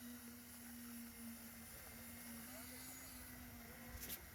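Steady low hum of the concrete pouring machinery, with faint voices of workers and one sharp knock about four seconds in.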